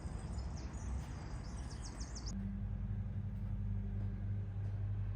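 Birds chirping over a steady outdoor rumble. About two seconds in, the sound cuts abruptly to a steady low hum.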